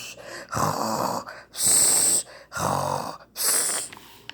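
A woman acting out a bear's snoring. Twice she draws in a low buzzing snore, then lets out a long hissing breath.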